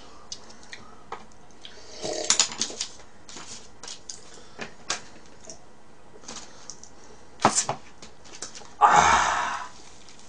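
Eating fried chicken: scattered crisp clicks and crackles of chewing and handling the pieces, then a louder crunchy bite near the end.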